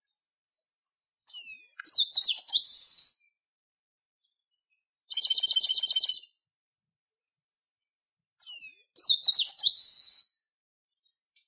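Chestnut-capped blackbird (garibaldi) singing: twice a phrase of clear gliding whistles that ends in a harsh buzz, and between them a fast rattling trill of rapidly repeated notes.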